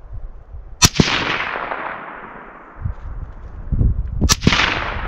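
Two rifle shots from a Colt AR-15A2 with a 20-inch barrel firing 5.56 NATO PMC 62-grain ammunition, about three and a half seconds apart. They are heard from beside the target 100 yards downrange. Each is a sharp crack, with a second crack just after it, followed by a long rolling echo.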